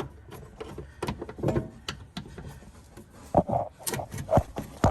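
Metal suspension parts and tools knocking and clanking as an upper control arm is worked free of a car's front suspension. There are scattered clicks, then several sharp knocks in the last two seconds.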